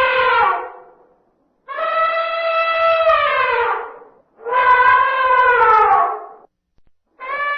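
Male elephant trumpeting: long calls, each held about two seconds on a steady pitch and sliding down in pitch at the end, with short silent gaps between them. A call fades out in the first second, two full calls follow, and another begins near the end.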